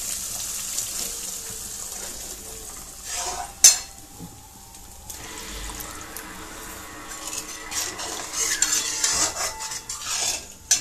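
Water poured from a steel mug into a hot kadai of spice paste frying in oil, hissing as it goes in, the stage where water is added to the masala to make the curry gravy. Then a slotted steel ladle stirs and scrapes in the metal pan, with one sharp metal clink about three and a half seconds in.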